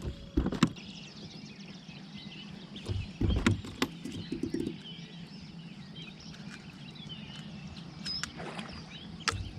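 Birds chirping steadily around a kayak, broken by several sharp knocks and clunks against the hull: one just after the start, a cluster a few seconds in with a quick run of small ticks, and one near the end.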